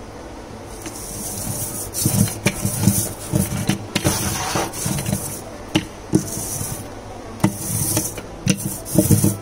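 A sticky cleaning roller is rolled back and forth over a cabinet's textured shelf liner. It makes a series of rasping, hissing strokes as the adhesive grips and lets go of the surface, with light knocks and clicks of the roller and handle against the shelf and cabinet.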